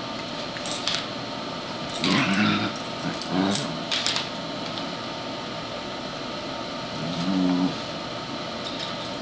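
Dogs play-wrestling, with three short bouts of low growling, about two, three and a half and seven and a half seconds in, and a few brief scuffling noises.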